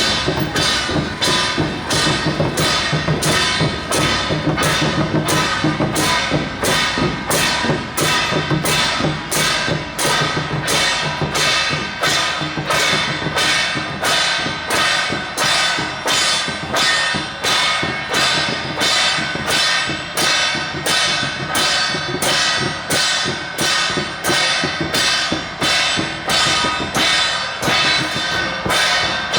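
Temple-procession percussion for a Jia Jiang troupe: drum with ringing gongs and cymbals beating a steady pulse, about three strokes every two seconds.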